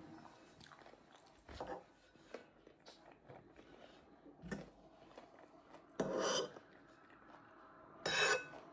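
Eating sounds: cutlery clicking and scraping on a dinner plate, with chewing. Two louder scrapes or clatters come near the end.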